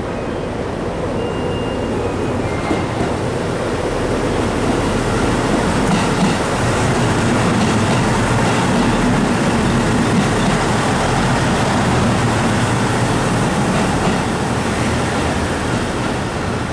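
JR Central Kiya 97 series diesel rail-transport train passing close by, its engine and wheels on the rails making a steady rumble with wheel clatter. The sound swells as the cars go by and eases slightly near the end as the train pulls away.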